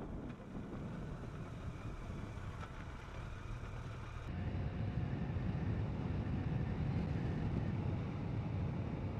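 BMW K1200RS motorcycle on the move: its four-cylinder engine running under wind rush on the helmet microphone, getting louder with more low rumble about four seconds in.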